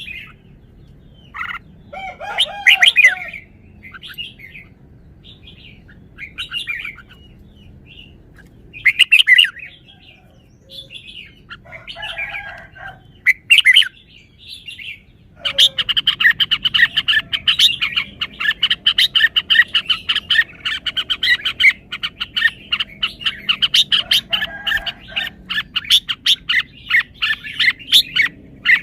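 Red-whiskered bulbul singing: short, separate phrases with pauses between them for the first half, then from about halfway a long unbroken run of rapid chirping notes.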